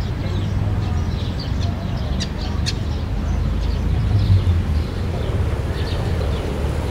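Outdoor city-park ambience: a steady low rumble of distant traffic with small birds chirping on and off throughout.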